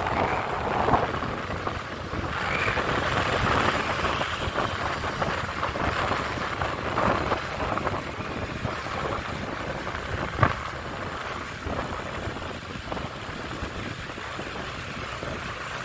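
Outdoor street noise: a steady rush of passing traffic with scattered small knocks, and one sharp knock about ten seconds in.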